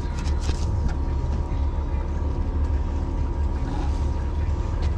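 Fishing boat's engine running steadily with a low drone, and a few light clicks about half a second in.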